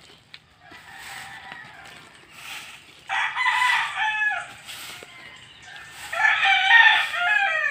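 A rooster crowing twice, each crow a little over a second long and falling in pitch at the end, the second crow louder.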